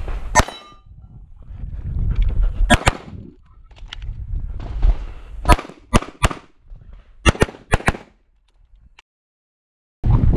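About nine pistol shots from an SPS Vista Star 9mm major Open-division race pistol. They come in singles and quick pairs about a second apart, with a low rumble of movement between them. The sound cuts off suddenly near the end.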